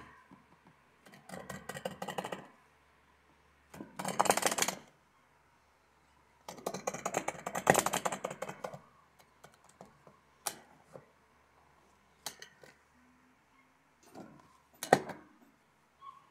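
Fingertips tapping quickly on a plastic stapler in pretend typing: three bursts of rapid clicking, then a few single taps.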